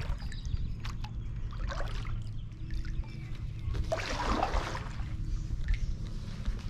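Kayak paddle working the water: water trickling and dripping off the blade, with one louder splash of a stroke about four seconds in, over a low steady rumble.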